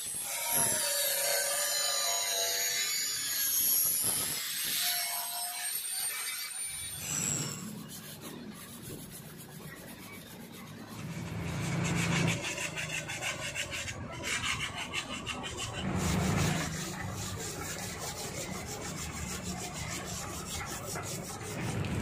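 An angle grinder whines against the rusted steel body of a 1977 Vespa scooter, its pitch wavering, for about the first seven seconds. Then it stops, and the wet steel bodywork is scrubbed by hand with repeated rubbing and scraping strokes, swelling louder now and then.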